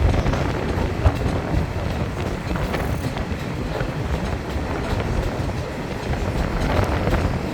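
Train running along the track: a steady rumble with a few sharp clicks from the wheels over the rails.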